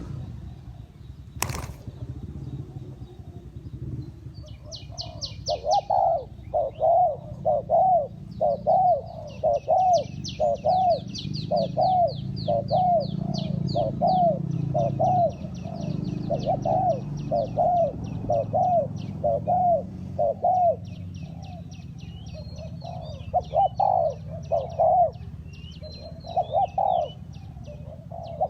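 Spotted dove cooing, a long run of evenly repeated low notes, with small birds chirping in quick high trills above it. A sharp click comes about a second and a half in.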